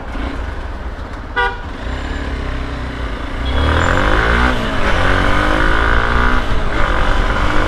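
Two-wheeler riding through city traffic, with a short vehicle horn toot about a second and a half in. From about three and a half seconds the engine note gets louder and its pitch rises and falls as the bike accelerates, over a steady low rumble of wind on the microphone.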